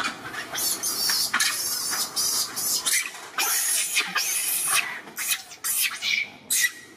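Baby macaque giving repeated short, shrill squeals and screams: distress cries while its head is stuck in a chain-link fence.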